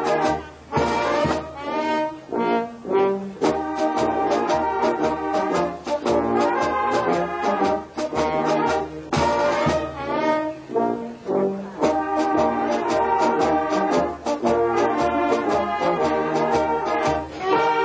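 Brass band playing: a brass melody with trombones prominent, over a steady drum beat, broken by brief pauses between phrases.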